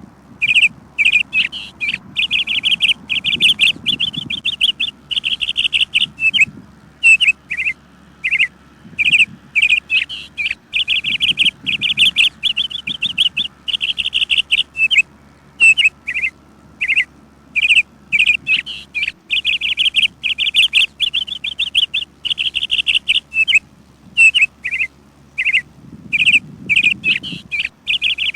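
Birds chirping: runs of rapid, high-pitched chirps and short trills, repeated with brief pauses.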